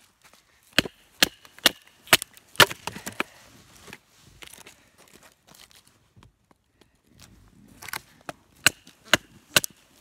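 A large bushcraft knife chopping into a wooden stick, each stroke a sharp knock: about six chops roughly half a second apart, a pause of a few seconds, then another quick run of chops near the end.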